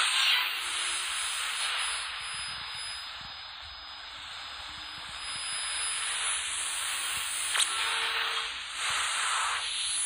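Atlanfa multiband portable radio tuned between shortwave stations, its speaker giving a steady static hiss, with one brief click about seven and a half seconds in.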